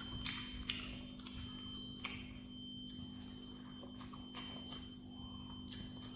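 Close-up eating sounds of boiled pork being chewed: irregular wet smacks and clicks of the mouth, a few at a time. A steady electrical hum runs underneath.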